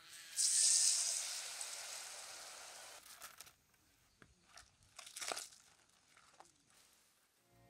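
Battered cassava hitting hot oil in a pot, starting to sizzle loudly about half a second in and fading over the next few seconds. Later, a few light clicks and rustles as the fried cassava is tipped from a wire frying basket onto banana leaves.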